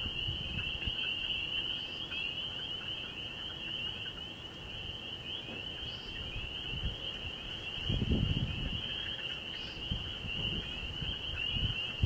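Chorus of night insects trilling steadily in rapid pulses, over a low rumbling noise on the microphone that swells about eight seconds in.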